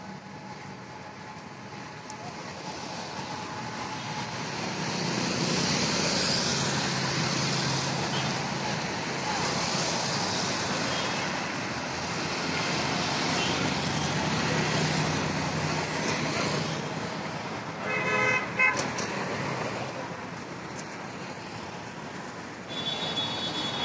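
Busy road traffic: a steady rush of engines and tyres that swells a few seconds in, with a car horn honking briefly about three-quarters of the way through and another short horn near the end.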